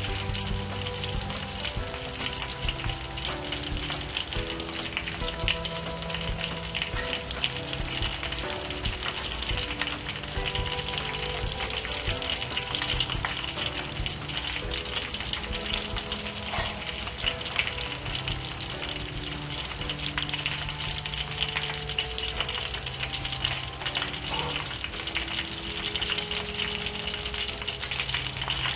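Battered tempeh slices deep-frying in hot oil in a wok: a steady, dense crackling sizzle. The first side is still cooking, before the pieces are turned.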